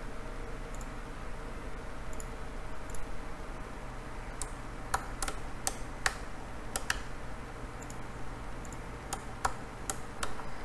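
Irregular sharp clicks of a computer mouse and keyboard, about a dozen, most of them in the second half, some in quick pairs, over a low steady hum.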